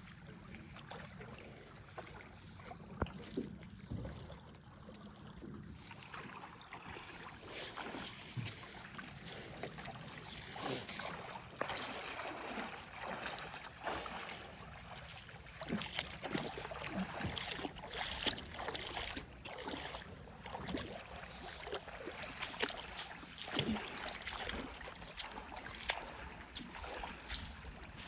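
Faint splashing of river water around a canoe, with scattered knocks and taps throughout that become busier about a third of the way in.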